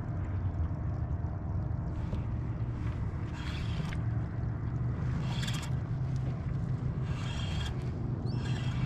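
Steady low rumble of the kayak on the water, with four short scraping bursts in the second half, from the fishing gear as a small fish is worked up on a bent rod.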